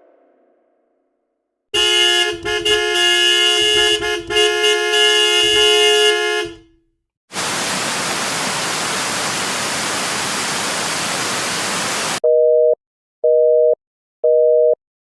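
Mock emergency-alert sound effects: after a short silence, a loud, harsh horn-like blare of several steady tones stutters for about five seconds. Then comes a burst of white-noise static for about five seconds, which cuts off suddenly into telephone busy-signal beeps, two tones together, about once a second.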